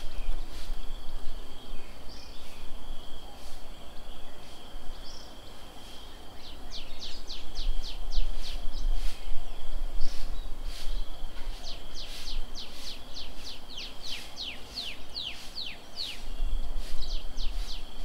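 A bird calling in quick runs of short downward-sweeping notes, a longer run a third of the way in and another, longer still, past the middle, over a steady high insect drone. Low rumbles come and go underneath.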